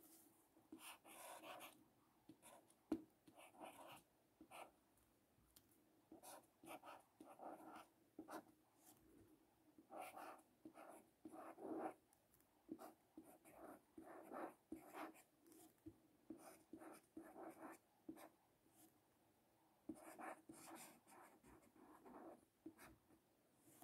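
Faint felt-tip marker writing on paper: short scratchy strokes with brief pauses between them as letters are drawn one after another, and a single sharper tap about three seconds in.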